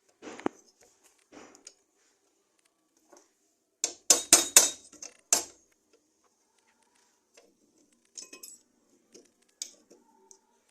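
Metal taps on a washing-machine motor being reassembled, struck to seat its parts: a quick run of about five sharp strikes near the middle, with softer knocks and clinks of handling the metal parts before and after.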